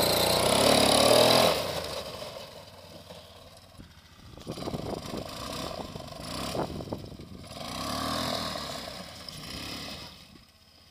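Homemade four-wheel-drive quad bike's engine, loud as it passes close by for the first second and a half, then fainter as it drives away, with revs rising again from about four seconds in and peaking near eight before fading.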